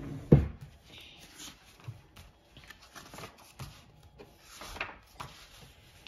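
A sharp thump about a third of a second in, then soft paper rustling and scraping as a thin paperback reading book is opened and its pages turned on a desk.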